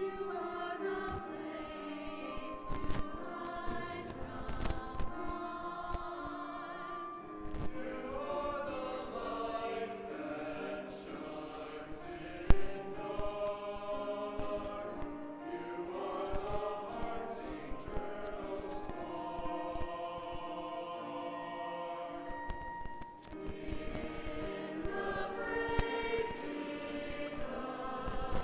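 A choir sings a communion hymn. There is one sharp knock about twelve seconds in.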